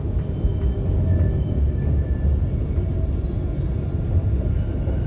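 Steady low rumble of outdoor city street ambience, with faint background music on top.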